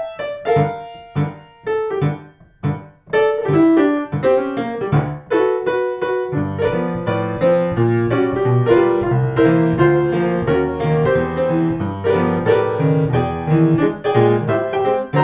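Solo piano playing a blues tune, sparse single notes at first, then fuller chords over a steady bass line from about six seconds in.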